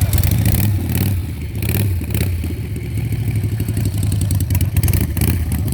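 Harley-Davidson V-twin motorcycle engine running loudly, its sound easing off briefly about a second and a half in, with some clatter over it.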